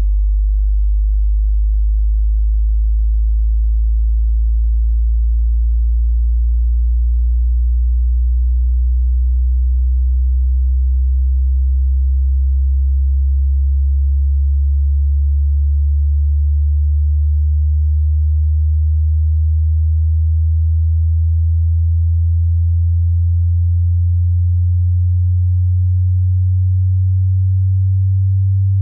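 A generated pure sine-wave test tone, very deep and slowly gliding upward in pitch at steady loudness: the low end of a hearing-test frequency sweep.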